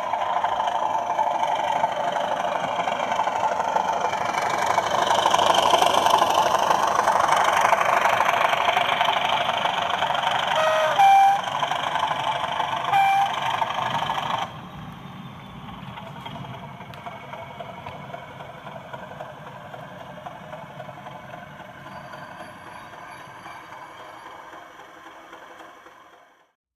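Sound decoder in a 00 gauge model locomotive playing a running locomotive engine through the model's small speaker, building up over the first few seconds. Two short horn notes sound about two seconds apart near the middle, then the engine sound suddenly drops to a quieter level and carries on until it fades out near the end.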